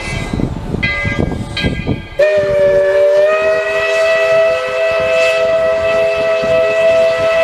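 Tweetsie Railroad's No. 12 narrow-gauge steam locomotive working slowly, exhaust chuffing and its bell ringing about once a second. About two seconds in, its steam whistle opens in one long, loud chord blast that rises slightly in pitch just after it starts and is held.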